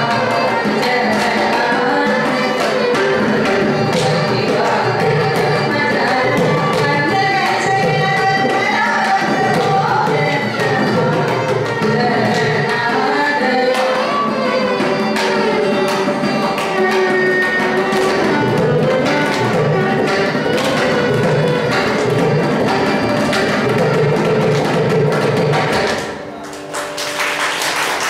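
Carnatic music: female voices singing with violin accompaniment and mridangam strokes. Near the end the music briefly drops quieter, then picks up again.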